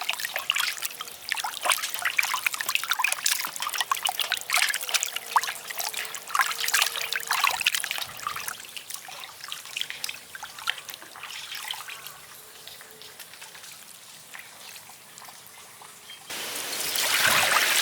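Water trickling and splashing in many small irregular crackles, thinning out after about twelve seconds; near the end a louder steady rush of running water starts suddenly.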